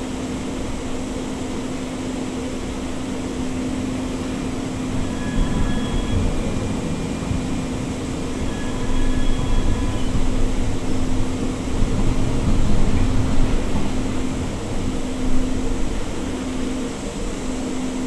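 Siemens S200 light rail vehicle heard from inside the car as it rolls slowly: a steady low hum over wheel-on-rail rumble, with a few short faint high tones around the middle and the noise getting louder in the second half.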